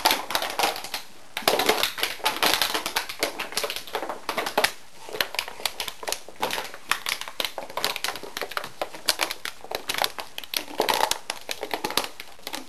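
A dog's claws and body scrabbling and scuffling on a hard floor as it rolls and plays: a dense run of rapid, irregular clicks and rustling scuffles with brief pauses.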